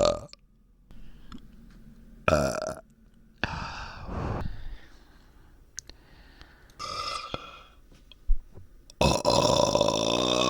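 A person burping several times with pauses between, the last a long drawn-out burp starting near the end. The burps come from a stomach the burper calls sore and bloated like a balloon.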